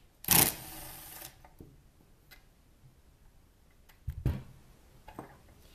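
Cordless impact driver running in a short burst, then whirring briefly as it backs the screw out of a kayak pedal drive's propeller hub. A few light knocks of handling follow about four seconds in.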